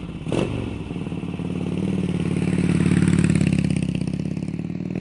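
2003 Harley-Davidson CVO Road King's 103 cubic inch air-cooled Twin Cam V-twin running through slip-on mufflers. A quick rev falls away about a third of a second in, then the engine note builds and eases back.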